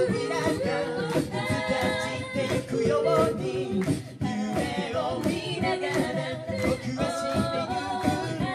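A cappella group of mixed male and female voices singing a song in harmony into microphones, with vocal percussion keeping a steady beat.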